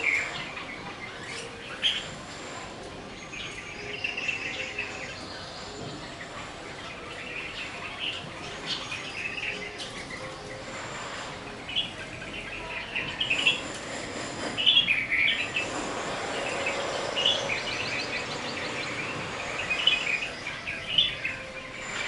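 Red-vented bulbuls giving short, quick chirping calls, scattered irregularly throughout. In the second half a steady rushing noise swells up beneath the calls and fades again near the end.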